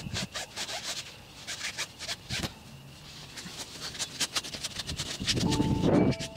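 A cloth being rubbed over the rubber sidewall of a car tyre to wash it, close to the microphone: irregular scratchy wiping strokes and small clicks, louder near the end.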